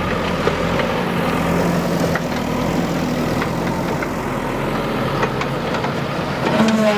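Heavy diesel engine of earthmoving machinery running steadily, with scattered light knocks and clanks. A higher steady tone comes in near the end.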